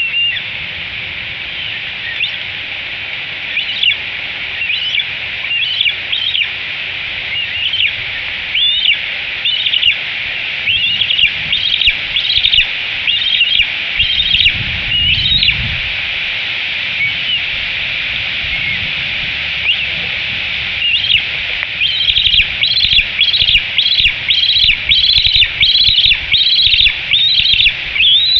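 Bald eagle eaglet's high-pitched food-begging calls: scattered chirping notes at first, then a rapid, steady run of nearly two calls a second over the last several seconds.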